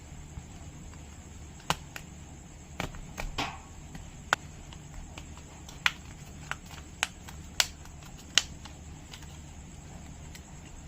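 Sharp plastic clicks and taps, about ten of them spread unevenly, as a prying tool works the Samsung Galaxy A50's middle frame cover loose, over a steady low hum.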